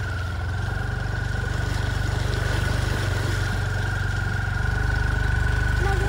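Vehicle engine running steadily at low revs, with a thin high whine held over the hum; it gets a little louder about four and a half seconds in.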